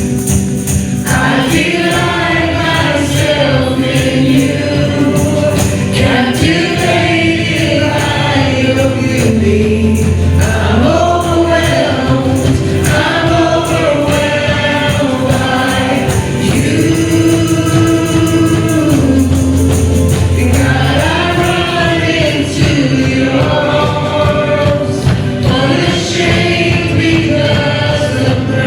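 Live worship music: a band playing a contemporary worship song with a steady bass and voices singing the melody.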